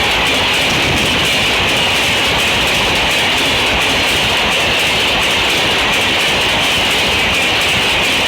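Passenger train passing at high speed: a loud, steady rush of coaches going by, with a hiss strongest in the upper range and a rapid run of wheel clicks over the rail joints.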